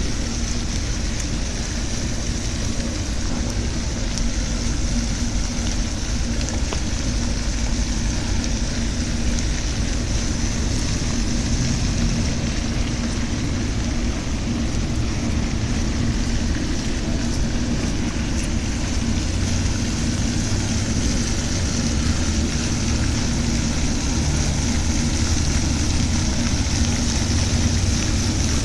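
Steady rushing hiss of a pond's spray fountain, with a low rumble underneath.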